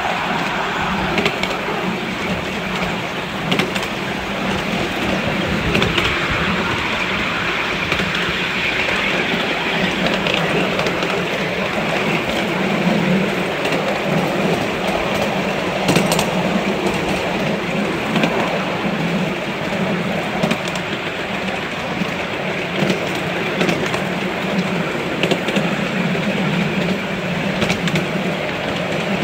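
Miniature ride-on railway train running along the track: a steady rumble of wheels on the rails, with now and then a sharp click.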